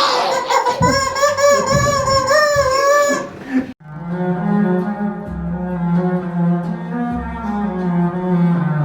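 Music: a wavering held high note for about three seconds, then, after an abrupt cut a little under four seconds in, slow music of held low notes like bowed strings.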